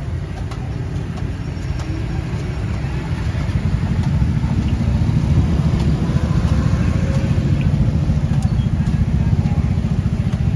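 A vehicle engine running close by, a low rumble that grows louder about three to four seconds in, over the faint sizzle of fishballs deep-frying in a wok of oil.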